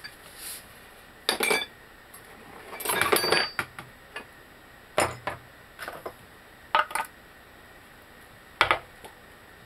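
Steel press-tool parts and rings clinking and knocking against each other and the control arm as they are handled and set in place, a series of separate metallic knocks with a small flurry about three seconds in.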